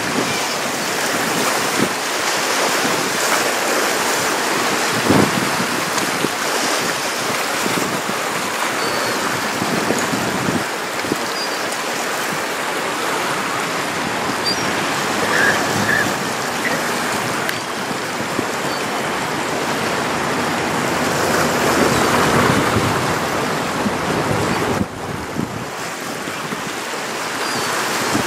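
Wind blowing over the microphone and choppy lake water washing, a steady rushing noise.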